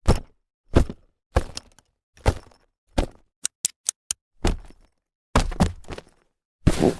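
Canvas bag being handled: a series of separate short thumps and rustles of the fabric, about eight in seven seconds, with a quick run of four sharp clicks in the middle.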